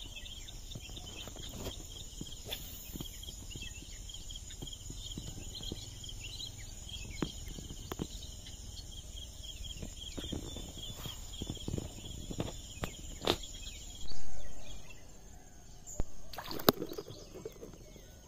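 Insects chirping steadily in a high, rapid, repeating pattern with a continuous high whine, over a low rumble and scattered small clicks. About fourteen seconds in comes a single loud bump that fades over a second, after which the high whine changes, and a few more knocks follow.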